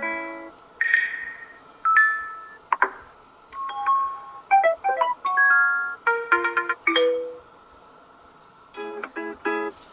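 Huawei P50 Pocket notification sounds played one after another: a string of short electronic chimes and little melodic jingles, each about a second long, with a short gap near the end before three quick tones.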